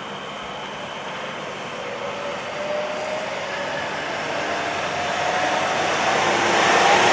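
ŁKA Stadler Flirt electric multiple unit approaching on the station track, its running noise growing steadily louder with a faint whine as it nears.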